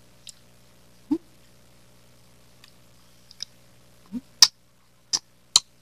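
Mouth sounds of a person eating melted ice cream off a small spoon: a handful of short, wet lip smacks and clicks, with the loudest one about four and a half seconds in and three close together near the end.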